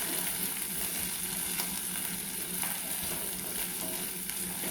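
Onion, green chillies and ginger-garlic paste sizzling steadily in hot sunflower oil in a pan, with a few light scrapes of stirring. The masala is being fried until the raw smell of the ginger-garlic paste cooks off.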